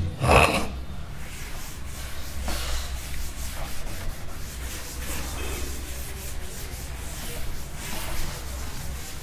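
A board duster rubbing over a chalkboard in repeated, uneven wiping strokes, erasing chalk writing, over a low steady hum. A brief louder noise comes right at the start.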